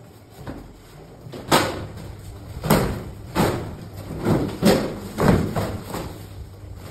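Large sheets of corrugated cardboard packaging being pulled, bent and folded by hand, giving a series of sharp scrapes and thumps, about six in all.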